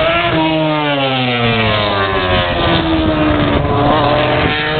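MotoGP racing motorcycle engine at high revs. Its note slides down in pitch over about two seconds, then runs steadier and climbs slightly near the end.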